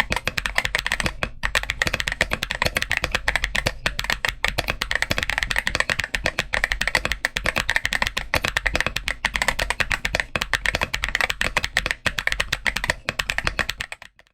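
Continuous fast typing on a GMK67 mechanical keyboard, a dense run of keystroke clacks. The board is stock apart from a PET sheet laid between the PCB and the IXPE foam. The typing stops just before the end.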